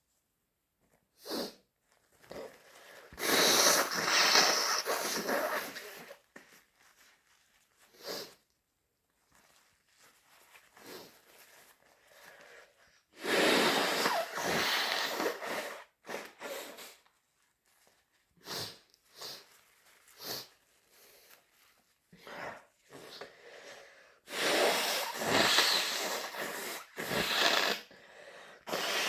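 A person in an intense induced sneezing fit: three loud bouts of sneezing, about ten seconds apart, with short sniffs and breaths between them.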